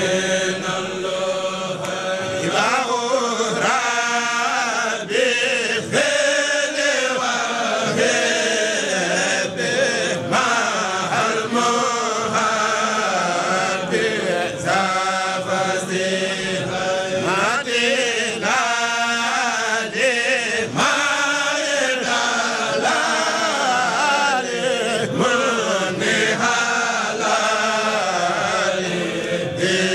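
Voices chanting Arabic religious verse without a break: a Mouride khassida sung as a devotional chant.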